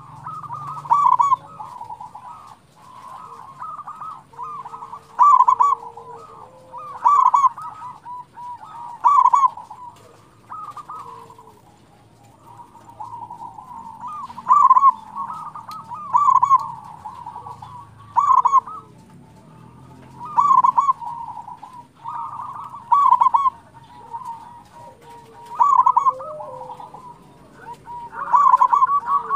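Zebra dove (perkutut) song: a loud bubbling coo phrase about every two seconds over softer continuous cooing. Near the end it turns into a fast, even run of short coos.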